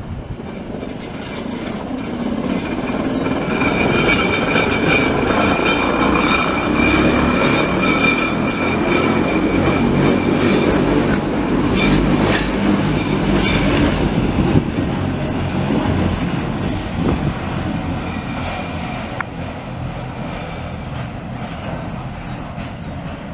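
Electric rack railcar of the Budapest Cog-wheel Railway passing close by: a rumble of wheels on the track with a steady high whine over it. It grows louder over the first few seconds, holds, and fades away after about fifteen seconds.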